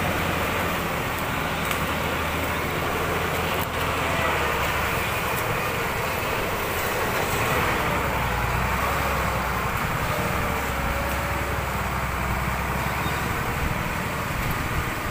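Engine of a modified log truck loaded with acacia wood, running steadily under load as it climbs a muddy track. Its low hum drops in pitch about halfway through and rises again near the end.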